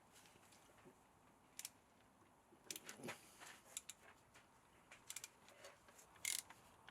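Near silence with a few faint, scattered clicks and taps of a hand tool on metal, from undoing the T25 Torx screws that hold the engine block's oil squirters.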